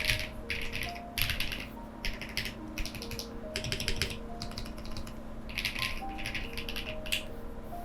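Typing on a custom mechanical keyboard with lubed V2u switches and Retro 1989 keycaps, in bursts of rapid keystrokes with short pauses between, over soft background music.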